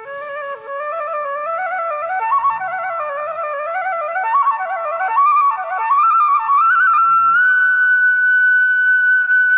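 Background instrumental music: a single melody stepping quickly up and down, settling on a long held high note about three-quarters of the way through.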